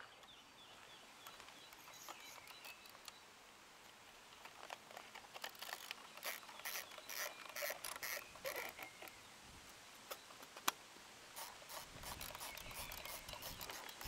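Faint rustling with scattered small clicks, busiest in the middle, and one sharper click about ten and a half seconds in.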